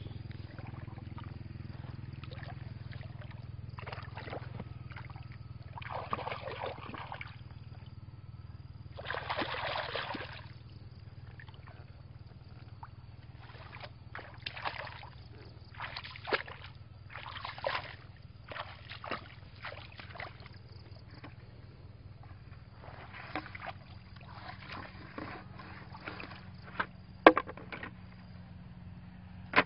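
Shallow muddy water splashing and sloshing in short, irregular bursts as a woven bamboo plunge-basket fish trap is pushed into it and hands grope about, over a steady low hum. A couple of sharp knocks near the end are the loudest sounds.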